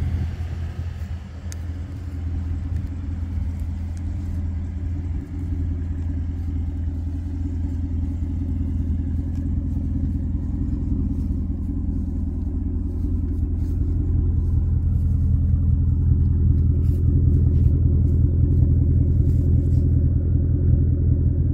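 Ford Mustang Mach 1's 5.0-litre V8 idling steadily through a REMUS cat-back exhaust with its valves fully open: a deep, even rumble that grows louder toward the end as the tailpipes come near.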